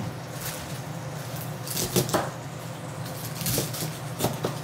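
Petty knife cutting cabbage on a plastic cutting board: irregular crisp cuts through the leaves and taps of the blade on the board, a couple of the strokes louder about two seconds in and near the end.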